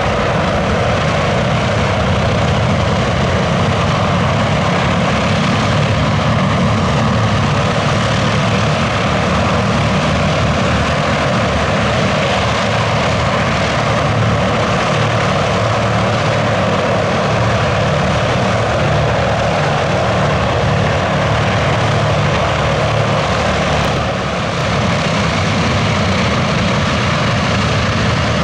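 Consolidated PBY-5A Catalina's two Pratt & Whitney R-1830 Twin Wasp radial engines running loud and steady.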